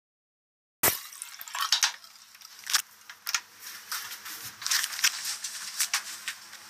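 Digital silence for almost a second, then a run of irregular sharp clicks and clatters over a faint steady hum.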